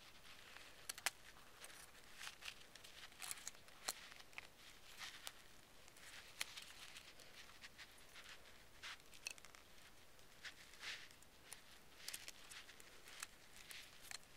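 Faint, irregular small clicks and scrapes of a BlackBerry Bold 9000's plastic housing and keyboard being pushed and pried apart by hand.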